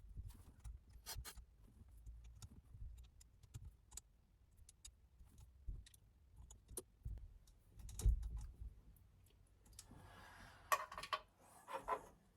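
Scattered small clicks, taps and low knocks of steering-wheel parts and hardware being handled and fitted to a quick-release hub, with a brief metallic jangling rattle near the end.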